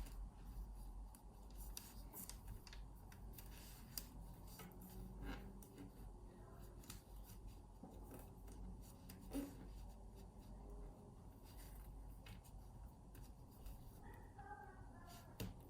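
Faint, scattered clicks and rubbing of a weaving hook working the fabric loops of a loom-woven piece, over a low steady hum.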